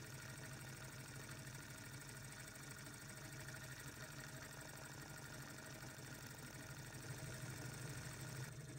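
KONTAX KS18 beta-type Stirling engine running steadily, its flywheel and displacer giving an even, fast mechanical whirr.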